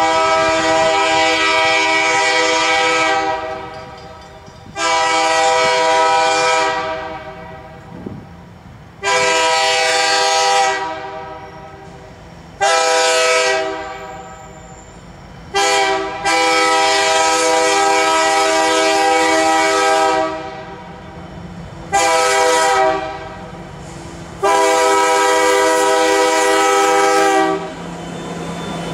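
Canadian National freight locomotive's multi-chime air horn sounding eight blasts, long and short, in the repeated grade-crossing pattern as the train approaches. Under the last blasts a low rumble of the locomotive passing close.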